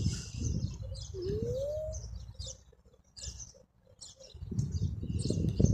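A flock of small birds chirping, with short high chirps repeating all through over a low rumble. A single brief rising squeak comes about a second in.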